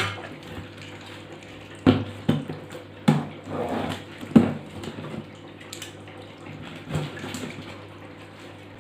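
Cardboard box of a stainless steel dinner set being opened by hand: rustling packaging and a few sharp knocks, mostly in the first half, over a faint steady hum.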